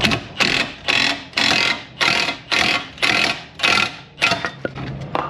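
Wrench driving the forcing screw of a Snap-on ball joint press to push out a ball joint: about ten short rattling bursts, roughly two a second, stopping a little before the end.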